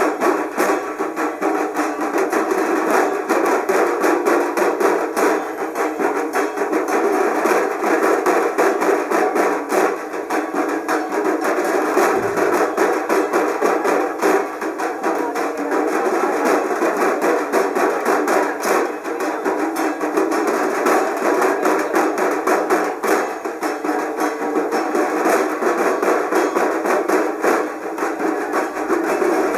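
Music made of rapid, unbroken percussion strikes, keeping up a dense, even rhythm throughout.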